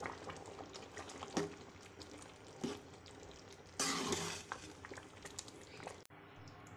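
A metal spatula stirring and scraping through wet, half-cooked rice and chicken in a metal pot, with a few light knocks against the pot and a longer, louder scrape about four seconds in.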